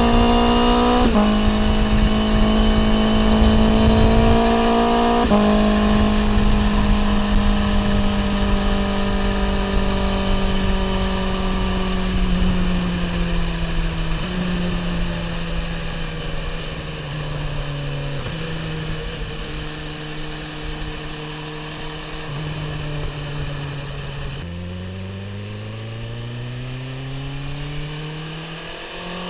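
BMW S1000R inline-four engine through an Akrapovic exhaust, heard from the rider's seat with wind rush: the note steps down twice in the first few seconds, then slowly sinks over about twenty seconds as the bike slows. Near the end the wind noise drops away and the engine revs climb again in two rising pulls as it accelerates.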